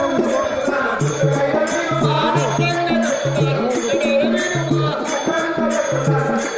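Live music accompanying a folk stage play: a short low melodic figure repeated over and over, with a steady beat of sharp percussion strokes.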